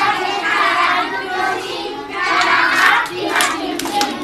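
A group of children singing and shouting together in chorus, with hand clapping that gets sharper and quicker near the end.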